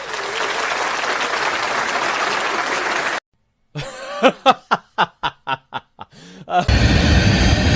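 Applause for about three seconds, a brief gap, then a short run of quick laughter; steady airliner engine noise comes back near the end.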